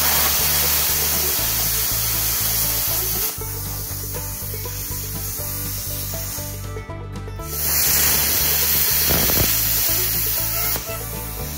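BestArc BTC500DP plasma cutter cutting a steel T-post: a loud, even hiss of the arc and air, in two stretches of about three seconds, the first from the start, the second starting about halfway through. Background music runs underneath.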